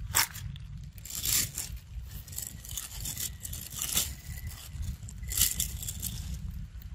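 Dry fallen leaves crackling and rustling in several short bursts as a young macaque moves and forages among them.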